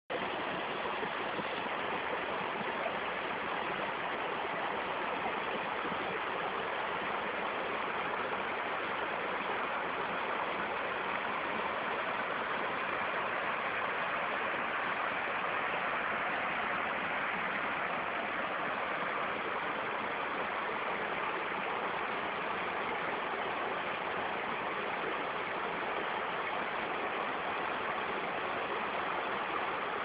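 Rainforest stream flowing, a steady, even rush of water.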